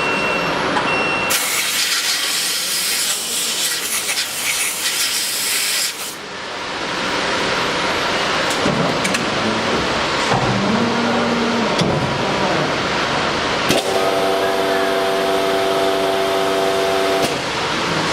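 Steady noise of running industrial machinery. A loud hiss of rushing air starts about a second in and lasts about five seconds, and a steady pitched hum joins near the end for a few seconds.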